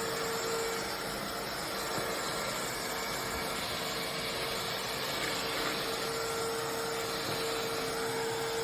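Bissell CrossWave Cordless Max wet-dry vacuum mop running steadily: an even rush of suction with one held hum tone through it.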